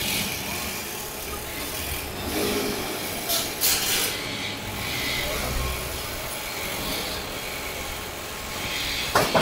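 Scraping and rubbing from hand work on temporary hoarding panels. There are a few sharp clacks about three and a half seconds in and a single sharp knock near the end.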